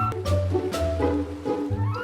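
Cheerful background music for a children's cartoon, with held notes over a steady bass line.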